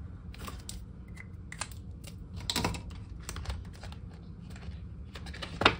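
Light clicks and rustles of hands working a cash budgeting binder: paper and plastic pages being handled and turned, with a sharper click near the end.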